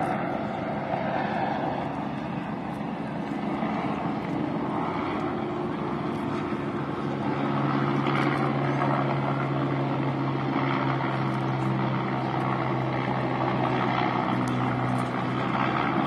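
Helicopter flying overhead, a steady drone of rotor and engine. A low hum in it grows stronger about seven seconds in.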